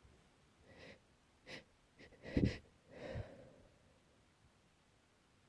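A person with allergies sniffling and breathing through a congested nose: four short breathy sniffs and breaths, the loudest about two and a half seconds in.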